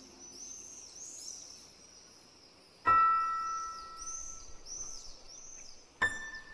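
Sparse soundtrack music: a struck, bell-like note rings out and fades about three seconds in, and a second, higher one sounds near the end, over a faint, high chirping background.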